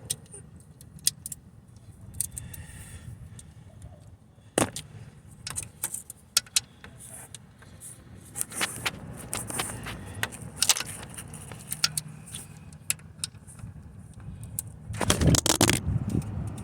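Irregular metallic clicks and clinks of hand tools and a bolt against metal in a car's engine bay as an alternator mounting bolt is threaded in and tightened, with a cluster of louder knocks near the end.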